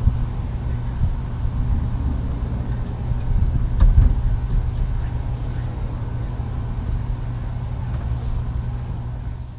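A steady low motor rumble with an even hum.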